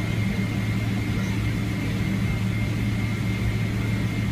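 Steady airliner cabin noise as the jet rolls along the runway: a constant low engine hum under a rushing noise, with a faint thin high tone above it.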